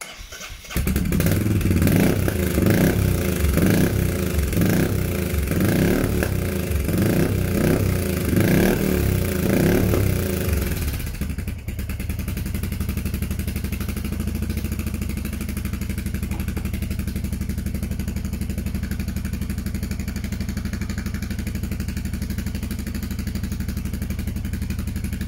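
Royal Enfield Meteor 350 single-cylinder engine, fitted with a Kent camshaft and breathing through a Red Rooster exhaust with its baffle still in, starting up. It is blipped repeatedly, about once a second, for some ten seconds, then settles into a steady idle.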